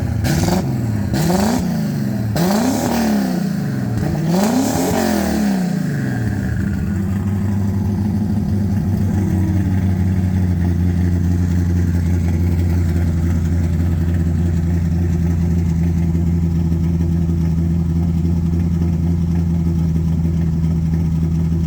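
Car engine revved up and let fall back about four times in quick succession, then settling into a steady idle for the rest of the time.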